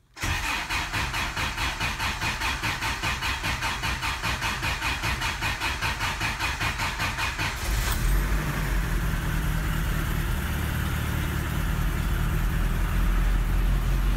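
Toyota 22R four-cylinder engine in a 1985 pickup, cold-started at 1°F, heard from inside the cab: the starter cranks it over in an even pulsing rhythm for about seven and a half seconds before it catches, then it runs at a steady idle.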